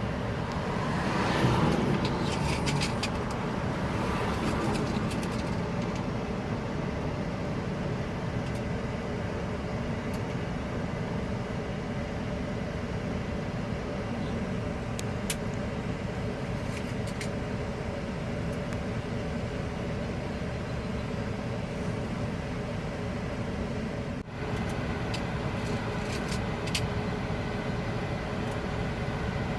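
Steady low running hum of a motor vehicle engine idling. Now and then there are small sharp metallic clicks from the small metal wafers of a lock cylinder being handled and set into place.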